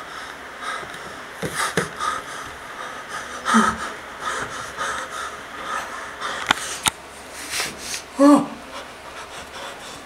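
Heavy, uneven breathing with sniffs, broken by two short vocal sounds, the louder one about eight seconds in, and a pair of sharp clicks about six and a half seconds in.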